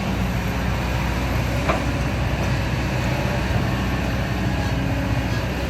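Heavy machine's diesel engine running steadily, with one brief knock about a second and a half in.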